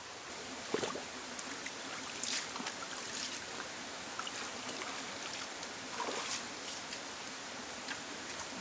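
Shallow rocky jungle stream flowing steadily. A few brief splashes and scuffs come from bare feet wading through the shallows and stepping up onto the boulders.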